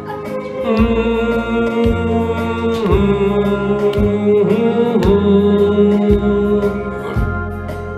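Karaoke: a man singing long held notes into a microphone over a TJ Media karaoke machine's backing track, with a low drum beat about once a second.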